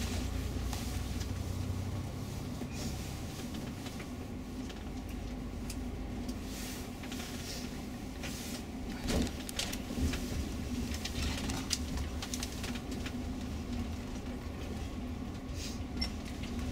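Tour coach heard from inside the cabin while driving: a steady low engine and road drone, with a few short knocks and rattles in the middle and near the end.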